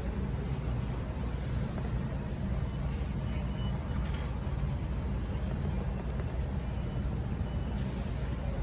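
Steady low rumble of background noise at an even level, with no distinct event.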